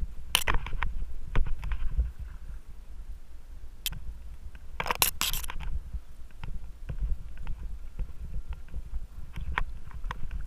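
Mountain bike riding over a rough dirt singletrack: a steady low rumble of the bike and camera jolting over the ground, with scattered rattles and clicks and two louder clattering bursts, about half a second in and around five seconds in.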